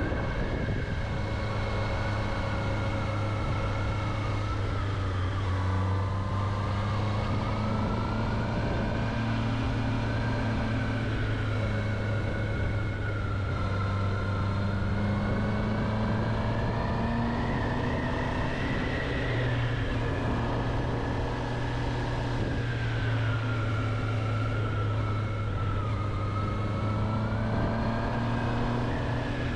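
Honda CB650R's inline-four engine running steadily under way, its pitch drifting slowly up and down with the throttle.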